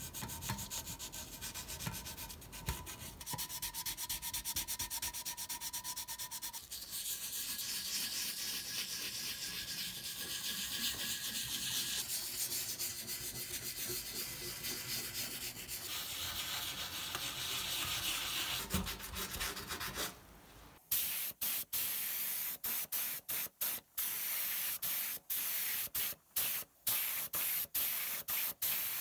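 Hand wet-sanding of a primed metal model-truck body with sandpaper, a steady rubbing and scrubbing. About two-thirds of the way through this gives way to an LVLP paint gun spraying in many short bursts.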